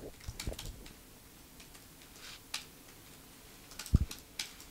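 Scattered light clicks of laptop keyboard typing, with a single short low thump about four seconds in.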